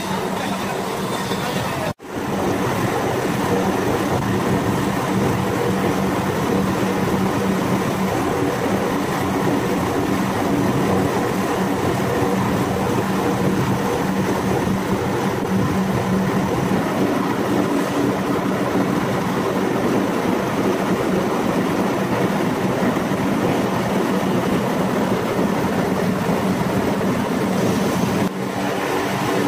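Copper wire granulator running: steady machine noise with a low hum, as the separation table sorts chopped copper granules from the plastic insulation. The sound drops out briefly about two seconds in, and the hum moves slightly higher past the middle.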